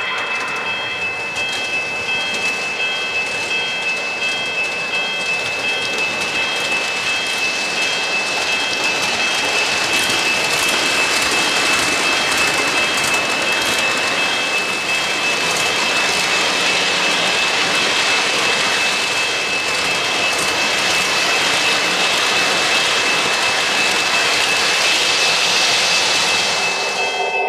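O-gauge model trains rolling on three-rail track: a steady rushing hiss of metal wheels on rail, with a thin steady whine, growing a little louder partway through.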